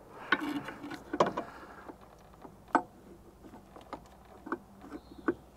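Irregular metallic clicks and light knocks, a second or so apart, as a pry bar and the loose hydraulic pump drive coupler are worked against the pump housing and bell housing of an excavator.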